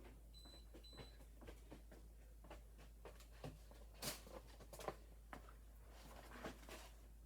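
Two short high beeps from a security alarm keypad in the first second, over faint clicks and rustles of hands handling wire; the handling noise grows louder for a moment about four seconds in, again near five seconds, and around six and a half seconds.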